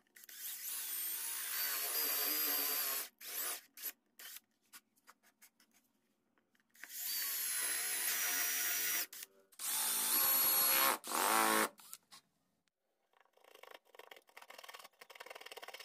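Cordless drill with a spade bit boring holes into a round wooden clock face: three long runs of the motor with short trigger blips after the first, the pitch rising and falling with speed and load. Near the end, a hand fret saw rasps through the wood.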